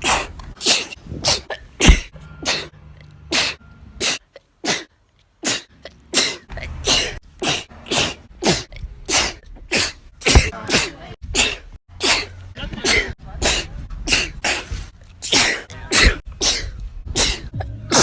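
A woman's sneezes, one after another at about two a second, edited back to back with abrupt cuts between recordings. Each is a short, sharp burst, some with a voiced "achoo", and there is a pause of about two seconds roughly four seconds in.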